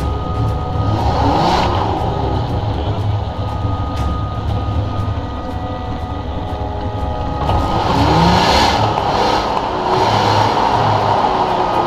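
Engine of an off-road 4x4 running under load, its revs rising about a second in and again near the two-thirds mark, with a rushing noise alongside during the second half.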